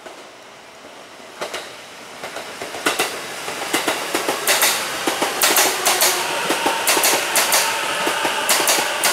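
A train rolling along the rails and growing louder over the first few seconds, with a rapid clatter of wheels over rail joints. A thin high squeal joins in over the last few seconds.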